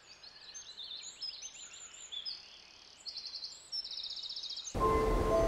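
Small birds chirping, with a fast even trill near the end. Then, just before the end, a loud musical sting cuts in abruptly: held bell-like ringing tones over a low rumble.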